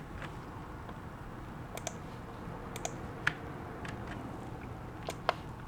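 About eight light, sharp clicks at irregular intervals, two of them louder about three and five seconds in, over a faint steady hum.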